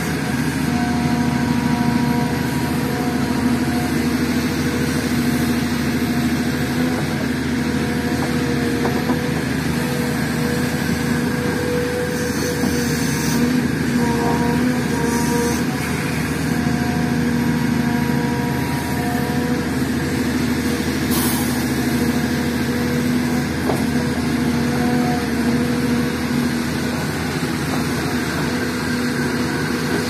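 SDLG crawler excavator's diesel engine running steadily under working load as the machine scoops soil with its bucket, the engine note shifting slightly as the arm moves.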